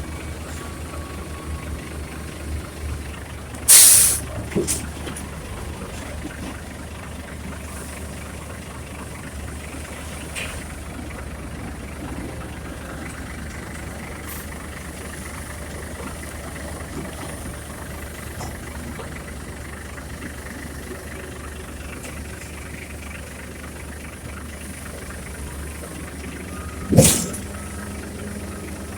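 Heavy diesel engine of a concrete mixer truck idling steadily, with a short loud hiss about four seconds in and another short loud burst near the end.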